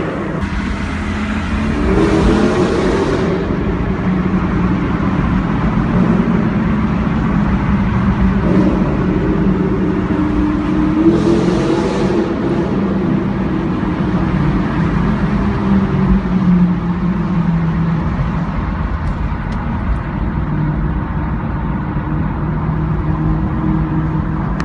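Mercedes CLK500's V8 engine with a straight-pipe exhaust running loudly under load, its revs rising a couple of times and then holding steady.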